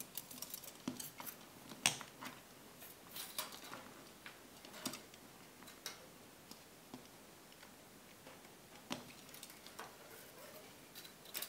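Faint, irregular clicks and ticks of thin craft wire being bent and wrapped by hand around the beaded body of a wire scorpion.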